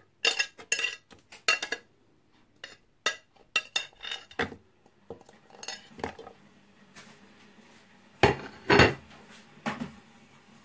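A utensil scraping and tapping on a ceramic plate as chopped onion, garlic and ginger are pushed off it into a nonstick pot: a run of light clinks and knocks, with two louder knocks close together near the end.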